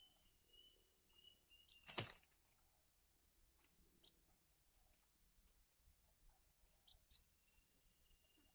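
Gelatik batu (cinereous tits) giving short, high-pitched chirps a few times, the sharpest and loudest about two seconds in, over a faint thin steady whistle-like tone.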